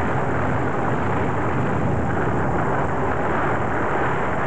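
Large forest fire burning, a steady, unbroken rushing noise with no separate crackles standing out.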